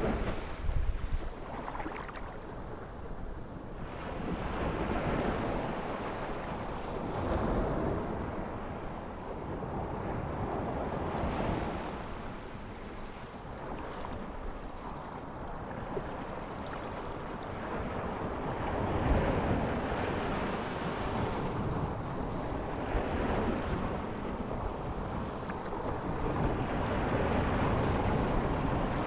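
Ocean surf: waves breaking and washing back, swelling and fading every few seconds.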